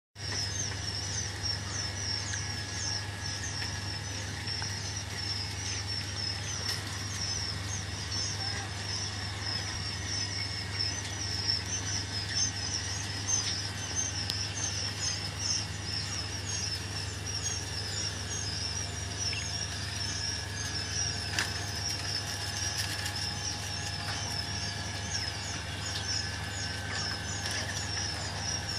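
A crowd of young Japanese quail in their cages, chirping: many short high peeps overlapping in a constant chatter. A steady low hum runs beneath.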